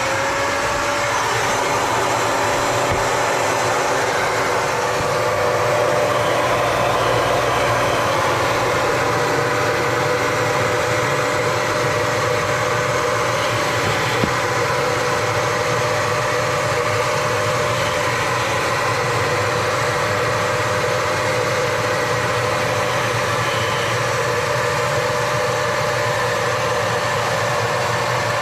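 Rug Doctor carpet extractor's suction motor running steadily with a constant whine over a loud rushing hiss, as it cleans car carpet. The whine rises slightly just as the motor comes up to speed.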